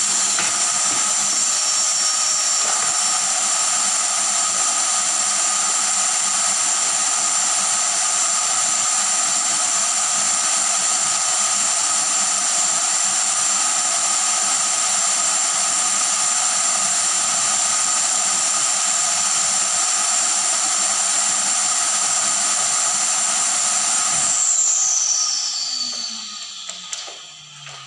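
Drum-type canister vacuum cleaner running steadily, a loud rushing hiss with a high whine over it. About three-quarters of the way through it is switched off, and the whine falls in pitch as the motor spins down and fades.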